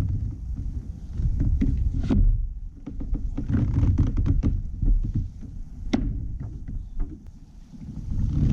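Scattered light taps and knocks on a kayak, over a low rumble that swells and fades.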